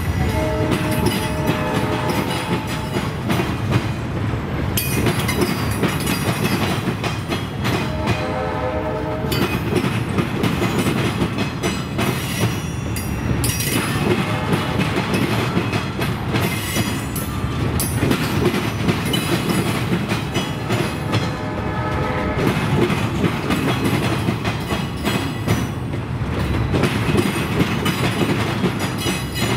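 A freight train carrying rail rolls steadily past, its wheels clicking over the rail joints. A locomotive horn sounds in short blasts about a second in, again around eight seconds in, and around twenty-one seconds in.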